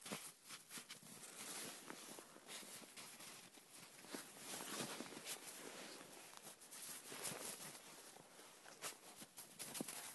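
Faint, irregular crunching and scuffling of snow as a dachshund roots about in it with its nose and front paws, following a scent.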